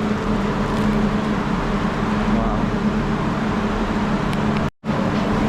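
Steady low mechanical hum with a constant drone under a noisy hiss, which drops out for a moment near the end.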